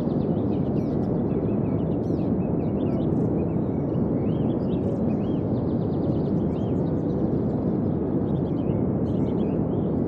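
Birds chirping: many short, arched calls from several birds, several a second, over a steady low rushing noise.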